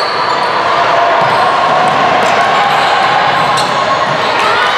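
Basketball game sound in a gym: a ball bouncing on the hardwood court, sneakers squeaking and players' voices echoing, with a short rising squeak near the end.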